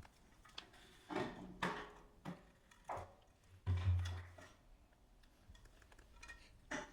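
Handling noises: a few short, light knocks and scrapes, with a duller thud about four seconds in.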